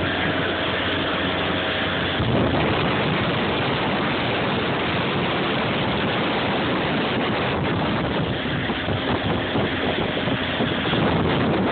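Motorboat running across choppy water: the engine's steady drone mixed with wind buffeting the phone microphone and water rushing past the hull.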